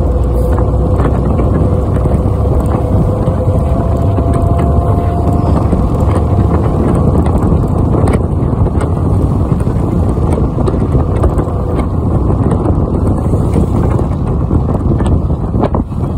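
Loud steady wind and road noise in a moving car, with a faint whine that rises in pitch over the first several seconds as the car speeds up.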